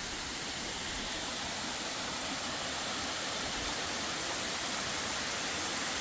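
Steady rushing of a mountain waterfall and its rocky stream, the fall running thin at low flow.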